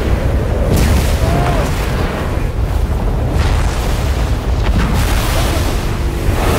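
Film sound design for a giant sandworm ploughing through sand dunes: a loud, continuous deep rumble with rushing sprays of sand swelling about a second in and again near the end.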